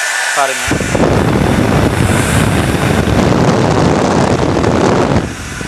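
Havells hair dryer on its high setting with the cool-shot button held, blowing air straight onto the microphone: a loud, rough wind rumble that starts under a second in.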